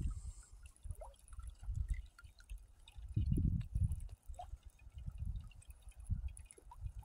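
Gusty wind buffeting the microphone in uneven low rumbles, with small water sounds of lapping and dripping.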